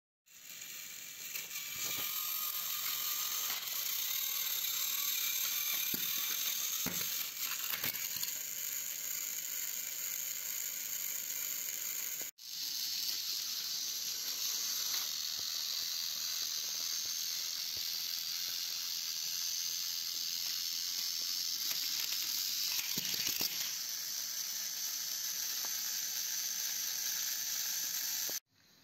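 Battery-powered Thomas & Friends toy train engines running, their small motors and plastic gearboxes giving a steady high-pitched whir, with a few light plastic clacks.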